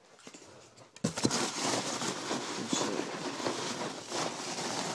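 Hands rummaging through packaging, with dense crinkling and rustling and many small clicks, starting about a second in.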